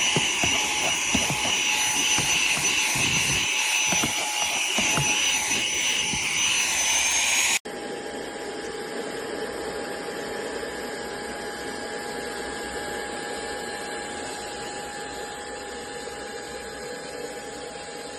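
WADEO 3-in-1 cordless handheld vacuum's brushless motor running with a steady high whine and rushing air. About seven and a half seconds in, the sound cuts off abruptly and gives way to a quieter, steady run.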